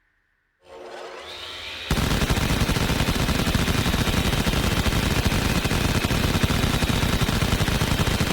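Sound-effect machine gun firing a long, unbroken burst of very rapid automatic fire. It starts about two seconds in and is preceded by a brief sound rising in pitch.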